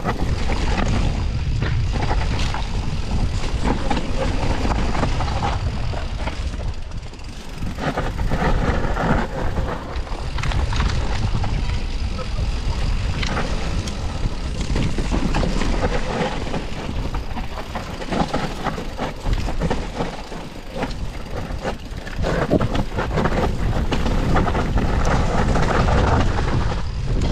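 Mountain bike descending a rough bike-park trail: wind rumbling on the microphone over a constant rattle of tyres, chain and frame on dirt and roots. The noise eases twice, briefly, and builds again as the bike picks up speed.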